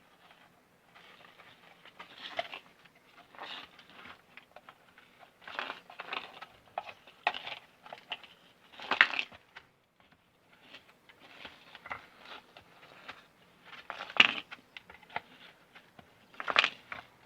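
Irregular clicks, scrapes and a few sharp knocks of tools and pump parts being handled while a submersible drainage pump is taken apart. The sharpest knocks come about halfway through and twice near the end.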